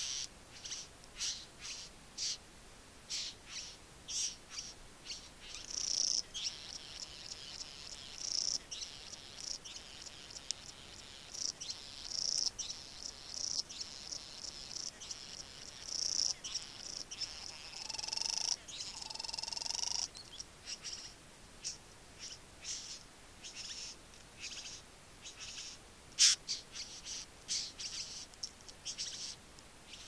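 A green-plumaged young male satin bowerbird displaying at its bower, giving a run of short high chirps and, in the middle, a longer buzzy chattering stretch of display song. A single sharp click stands out near the end.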